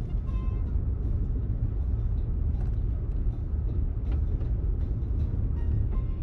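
Steady low rumble of a vehicle driving, heard from inside: tyre and engine noise on a rough road.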